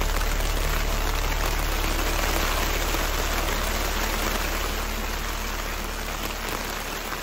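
Steady rain falling, an even hiss with a low rumble beneath it, fading out near the end.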